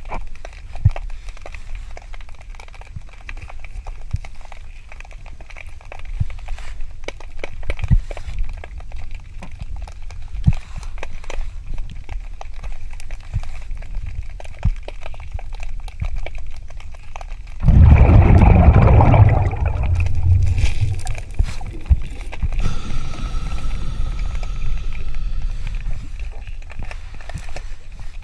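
Underwater sound of a scuba dive in a river: a steady low rumble with scattered clicks and knocks as gloved hands sort through debris. About eighteen seconds in comes a loud two-second rush of exhaled regulator bubbles.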